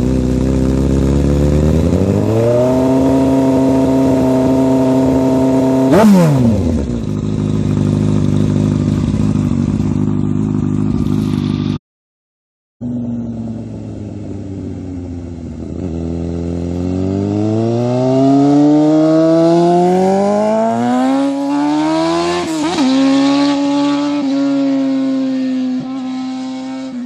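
2003 Honda CBR954RR's inline-four engine through a custom shorty exhaust, making two runs past at speed. The engine note climbs and holds high. On the first run it drops sharply in pitch as the bike passes, about six seconds in. After a brief break, the second run climbs again in steps through the gears.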